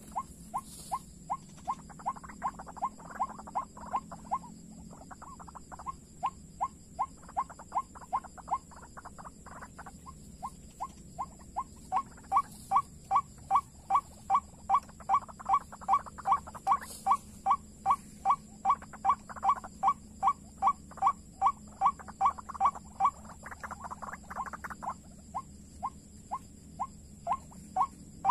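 White-breasted waterhen (ruak-ruak) calling: a long, rhythmic series of short, evenly spaced notes, about two to three a second. The series breaks off briefly twice in the first third and is louder from about the middle on.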